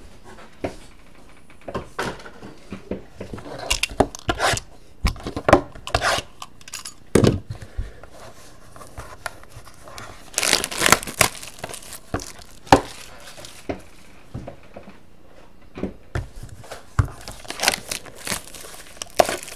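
Plastic wrap being torn and crinkled off a Topps Triple Threads trading-card box, with short rustles and clicks from the cardboard being handled. There are louder bursts of tearing a little past halfway and again near the end.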